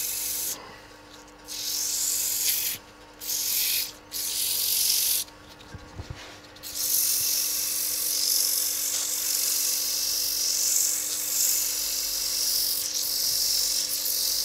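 Abrasive paper pressed against a spinning maple workpiece on a wood lathe: sanding the turned darning-mushroom head to a finish, a steady hiss that stops briefly several times in the first seven seconds and then runs on without a break. The lathe's motor hum sits underneath.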